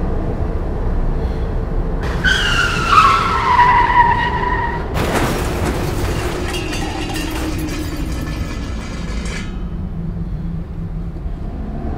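Car tyres screeching, the squeal falling in pitch for about three seconds, then a car crash: one loud impact about five seconds in, followed by a few seconds of rattling debris that dies away. A steady low engine rumble runs underneath.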